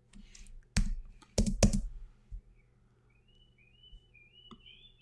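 A handful of computer keyboard key presses, sharp clicks bunched in the first two seconds as text is deleted and joined in a script. A few faint high chirps follow in the second half.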